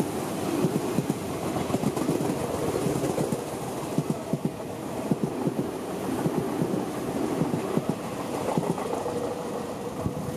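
Tobu Tojo Line electric commuter train passing close by, its wheels clacking over the rail joints in an irregular run of knocks over a steady rumble as the cars go past.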